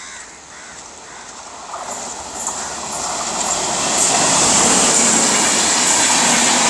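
Netravathi Express passenger train running through the station at speed without stopping. Its running noise builds from about two seconds in and is loud and steady from about four seconds on.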